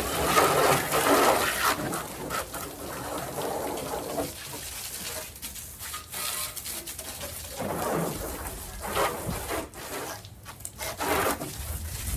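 Water spraying from a hose against a truck during washing, in on-and-off surges: heavy for the first couple of seconds, then lighter, with fresh bursts later on.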